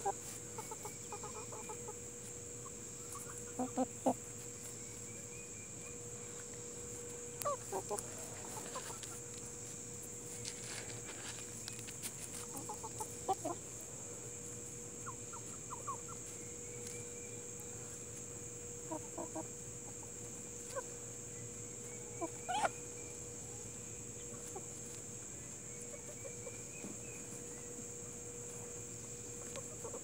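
Barred Plymouth Rock and Hamburg hens clucking softly and now and then while foraging, in short groups of clucks a few seconds apart. A steady high hiss runs underneath.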